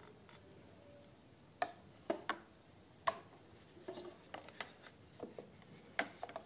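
Handling knocks from a folded Kodak T210 tripod being set down and shifted on a plastic digital kitchen scale: about a dozen sharp clicks and clacks, in small clusters, from its legs and head bumping the scale's platform and the table.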